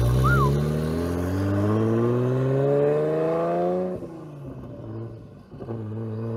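V6 sports car accelerating hard away from the listener, its engine note rising steadily for about four seconds. The note cuts off at a gear change, then comes back lower and starts to climb again near the end, fainter as the car draws away.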